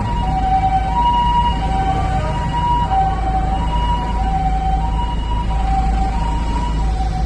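Japanese ambulance's two-tone siren going "pee-po, pee-po", switching between a higher and a lower tone about every half second, over the low rumble of the vehicle.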